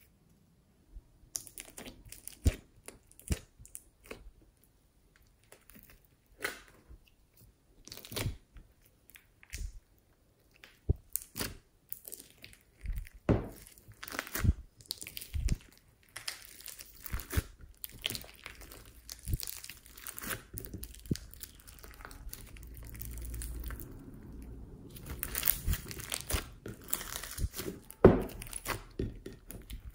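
Hands squishing, stretching and folding a big batch of slime mixed with floam beads and clay: irregular sticky crackles, clicks and pops, getting denser toward the end, with one loud pop near the end.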